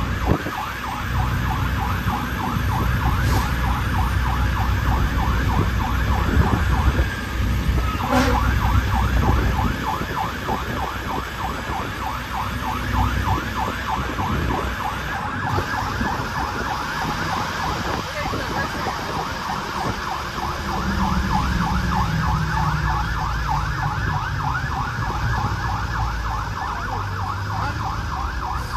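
Fire truck's electronic siren in a rapid yelp, heard from inside the cab, with a short break about eight seconds in. Under it runs the rumble of the truck's Detroit Diesel Series 60 engine.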